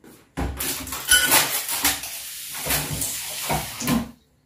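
Kitchen tap running water into the sink, turned on about half a second in and shut off abruptly just after four seconds.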